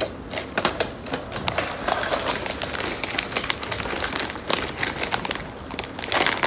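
A plastic potato-crisp bag crinkling and rustling in irregular crackles as it is handled and a hand rummages inside it for chips.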